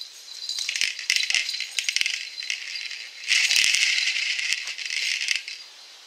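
Rattling, rustling noise from a ball toy hung on a rope from a tree as a dog leaps up, grabs it and hangs from it. There are a few sharp knocks in the first two seconds. The noise is loudest from just past the middle, then dies away near the end.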